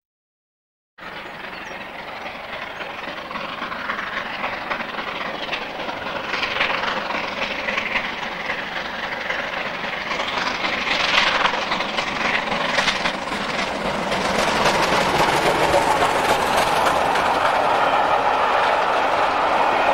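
Steam-hauled passenger train approaching at speed and running past, the sound building steadily after a second of silence. It becomes a loud, steady rumble and clatter of coach wheels on the rails as the coaches go by.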